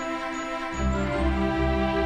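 Soft instrumental background music with sustained notes; the low bass drops out and comes back in about three-quarters of a second in.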